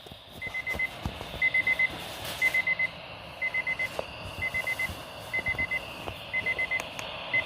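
A weather alert radio's alarm beeping in quick groups of four high beeps, about one group a second, signalling that a severe weather warning has been received.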